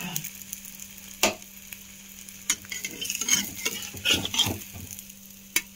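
An egg omelette sizzling in hot oil in a kadai. A metal spatula knocks once about a second in, then scrapes and clatters against the pan through the second half as it is worked under the omelette.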